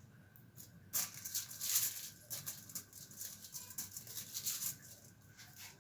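Wrapping material rustling and crinkling in a run of short, irregular handling noises as a paratha is wrapped up for packing.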